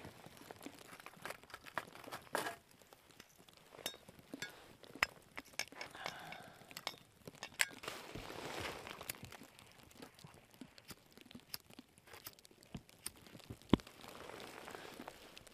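Camp cooking gear and food packaging being handled: scattered crinkling and rustling with short clicks and clinks, and one sharp click near the end.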